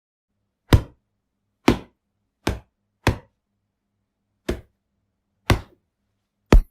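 A series of seven sharp hits at uneven intervals, each short with a brief tail, with silence between them.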